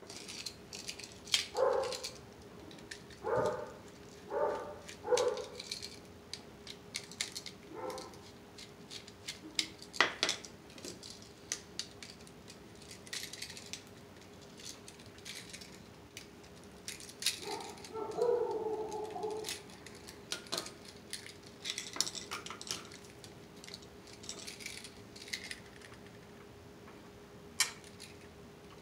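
A dog making short pitched calls, about four in the first five seconds and a longer one a little past the middle. Sharp clicks and snips of pliers working electrical wire run in between.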